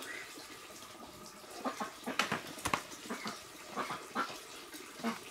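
Kitchen knife slicing raw pork on a wooden chopping board, the blade knocking on the board in light, irregular taps that start about a second and a half in.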